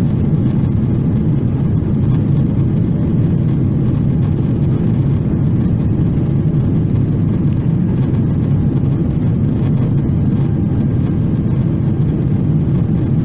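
In-flight cabin noise of a Boeing 777-300ER, heard from a window seat by the wing: its GE90 engines and the airflow over the fuselage make a steady, even low hum with no change in pitch.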